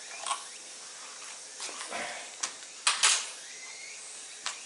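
A few light clicks and knocks from handling a radio-controlled car's plastic body and its clips, the loudest about three seconds in, over a faint steady hiss.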